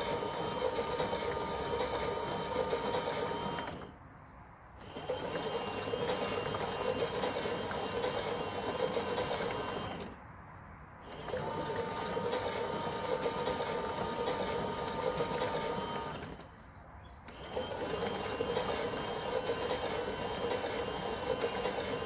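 Toy front-loading washing machine running a wash cycle with water in the drum: its small electric motor hums steadily as the drum turns, stopping for about a second three times, at roughly six-second intervals.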